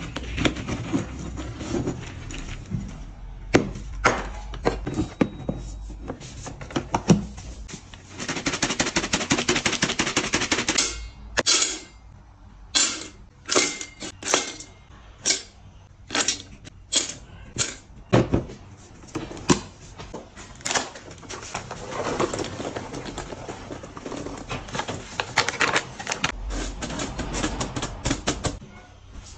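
Dry cat-food pellets poured into a plastic canister and a stainless-steel feeding bowl, rattling and clattering. There are long runs of fast, dense pattering and a series of separate sharp knocks.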